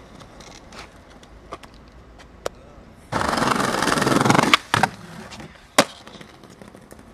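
Skateboard wheels rolling loudly over paving stones for about a second and a half, starting about three seconds in, then sharp clacks of the skateboard deck and wheels striking the ground and the concrete ledge, three in all, the last near the end the sharpest.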